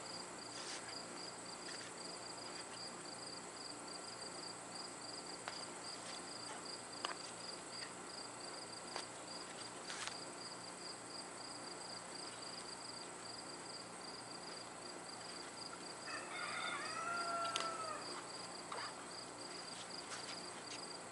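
A rooster crows once, about three-quarters of the way through, over steady high-pitched rhythmic chirping of insects. A few faint sharp clicks are heard along the way.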